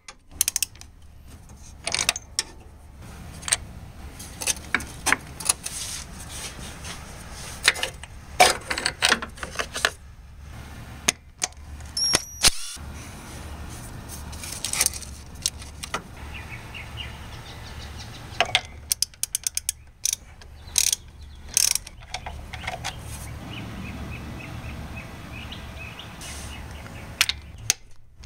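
Hand socket ratchet clicking in runs of quick even clicks as it turns the engine mount bolts, with scattered metallic knocks of the tool on the bracket.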